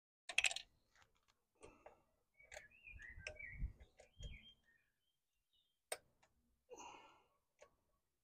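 Scattered light clicks, knocks and rustles of hands and tools working among a motorcycle's front-end parts.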